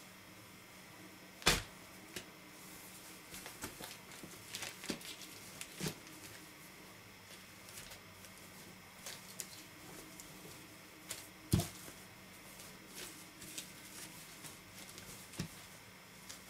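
Hands handling and unfolding a new white shirt over plastic packaging: soft rustling and crinkling with scattered small clicks over a faint steady hum. Two sharper knocks stand out, one about a second and a half in and one about two-thirds of the way through.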